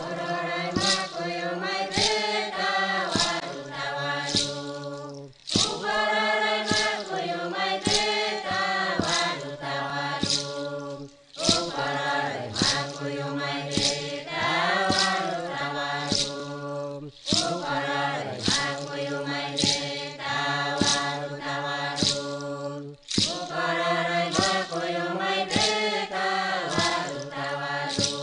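Background music: a group of voices singing a chant over a regular sharp percussive beat, in phrases of about six seconds with short breaks between them.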